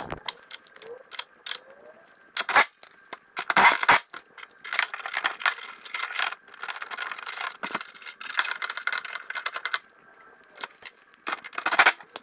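Steel hardware and hand tools clinking and rattling as coil tension springs are hooked onto a snow plow blade's mounting frame: irregular metallic clicks and jingles, busiest in the middle.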